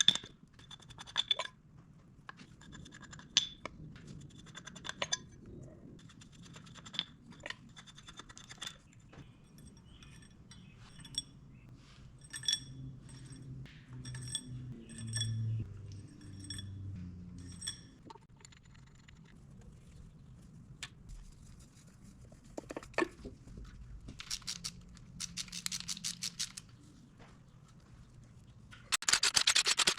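Tools and metal engine parts clinking and scraping during teardown of a 12-valve Cummins diesel, with scattered sharp metallic clicks that ring briefly, some coming about once a second. A loud rushing noise starts near the end.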